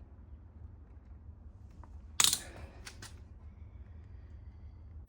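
One sharp click about two seconds in, followed by two lighter clicks, over a low steady hum.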